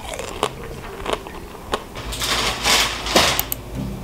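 Cutlery tapping on dishes: a few light clicks, then a stretch of rustling with short clinks.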